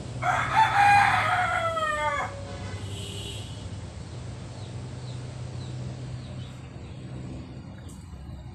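A rooster crowing once, a single call about two seconds long that starts just after the beginning and drops in pitch at its end.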